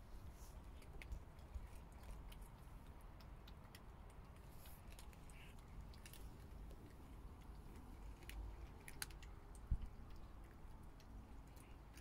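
Faint outdoor quiet with a low rumble and scattered small clicks and ticks, and one sharper knock about ten seconds in.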